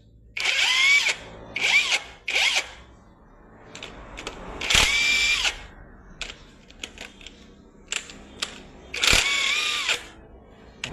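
Handheld electric drill-driver run in five short bursts, its motor whining at a steady pitch that sags as each burst ends, with small clicks between.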